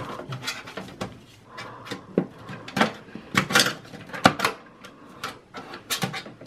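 Screwdrivers and gloved hands working the plastic retaining clips of a desktop PC power supply inside its sheet-metal case: irregular clicks, knocks and scrapes, the sharpest ones coming a few seconds in.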